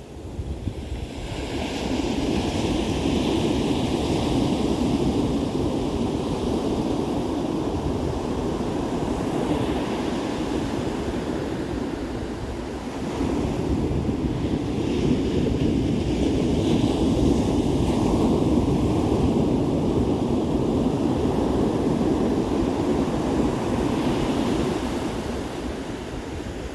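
Ocean surf breaking and washing up the beach in long swells, one rising about two seconds in and another from about thirteen seconds, with wind buffeting the microphone.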